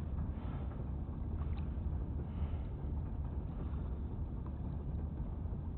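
Steady low rumble of wind buffeting the microphone, with a few faint small ticks.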